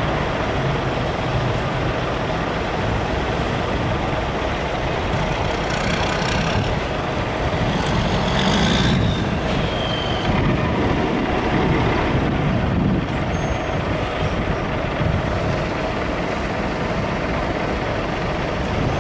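Steady road traffic at a busy intersection: a dump truck and cars driving past, engine and tyre noise throughout, with a short high squeal about nine seconds in.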